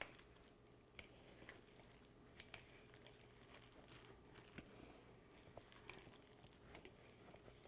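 Near silence, with faint squishing and light scattered clicks of a silicone spatula stirring a wet shredded zucchini mixture in a ceramic bowl.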